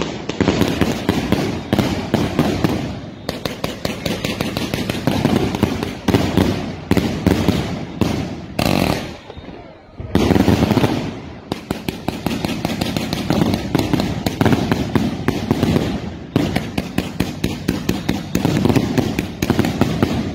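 Fireworks and firecrackers going off in a dense, rapid barrage of cracks and pops. About halfway through it thins out briefly with a short hiss, then picks up again.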